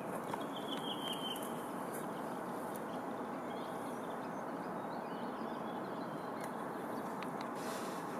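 Steady rushing outdoor background noise, with a short high bird call about a second in.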